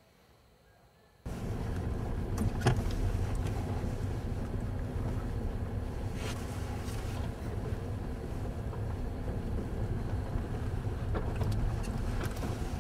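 Near silence, then about a second in a sudden cut to the steady low rumble of a car driving, heard from inside the cabin: road and engine noise with a few light knocks.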